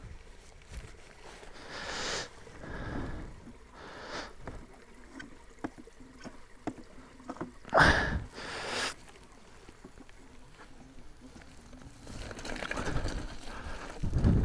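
Footsteps and knocks on a wooden plank footbridge as an Inmotion V8 electric unicycle with a flat battery is walked across. The loudest knock comes about eight seconds in, and there is more rustling movement near the end.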